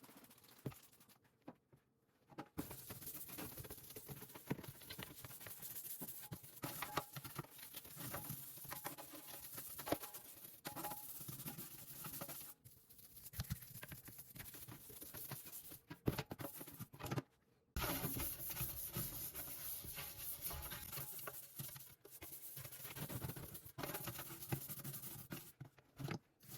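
Kitchen cleaning noises: steady scrubbing and rubbing with light knocks and clicks of items being handled. The noises come in several stretches that start and stop abruptly.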